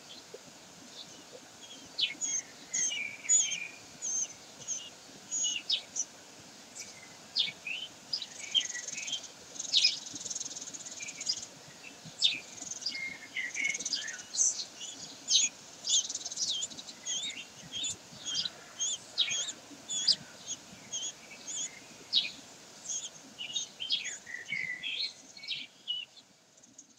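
Many short, high bird chirps and calls in quick, irregular succession, starting about two seconds in and stopping shortly before the end, over a faint steady hiss.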